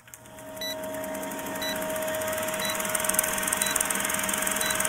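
Retro film-countdown sound effect: an old film projector running with a rapid clatter and steady hum, fading in over the first couple of seconds, with a short high beep about once a second as each number ticks down.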